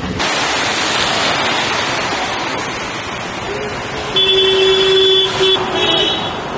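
Steady hiss of rain and traffic on a wet road. About four seconds in, a vehicle horn honks: one long blast of about a second, then two short honks.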